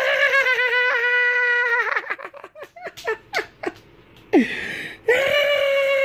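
A man's exaggerated high falsetto laughter: a long held note for about two seconds, then short broken bursts, then another long held note near the end.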